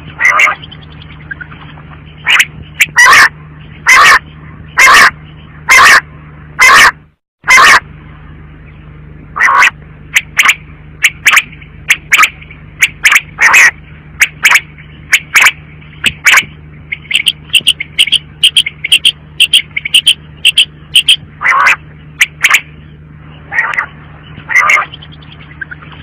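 Female common quail calling: short, sharp calls repeated about once a second, quickening into a faster run around the middle, over a low steady hum.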